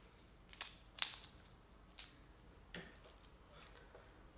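Cooked shrimp being peeled by hand: a handful of short crackles as the shell is pulled off.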